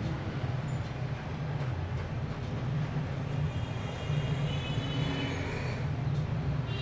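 Steady low rumbling hum of background machinery, with faint thin high tones about halfway through.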